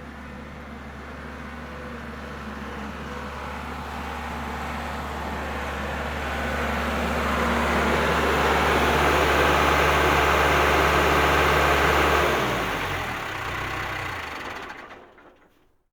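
Bobcat skid-steer loader's engine running at a steady note and growing steadily louder. About twelve seconds in, the engine note drops away in steps as it winds down, and the sound fades out near the end.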